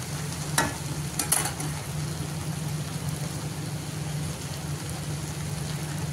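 Besan-coated okra frying in oil in a kadai with a soft steady sizzle over a low hum, and a metal spatula clicking against the pan twice, about half a second and just over a second in.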